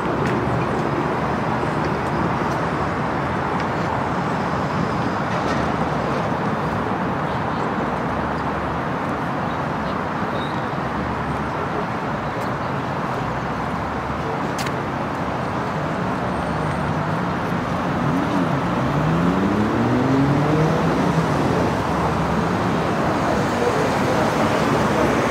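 Street traffic noise with trams passing and pulling in at a stop; near the end a tram's electric motors whine, the pitch gliding up and down several times.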